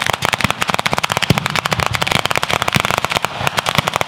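Ground firecracker battery going off in a dense, continuous string of sharp cracks, many a second, with no pause.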